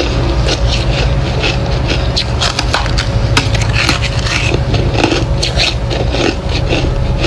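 Close-up crunching of white ice being bitten and chewed in the mouth: irregular crisp cracks and crunches, several a second, over a steady low hum.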